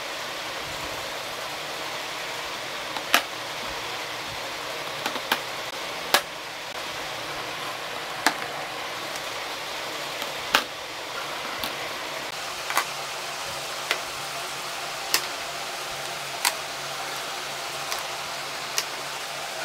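Powder blush and highlighter compacts being set down one by one into a vanity drawer: a dozen or so sharp, light clicks and taps at irregular intervals, over a steady hiss.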